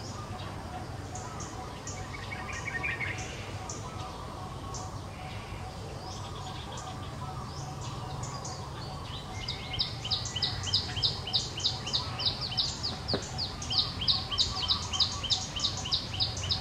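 A bird chirping in short high notes, sparse at first, then a fast, louder run of chirps at about four a second starting about ten seconds in, over a steady low hum.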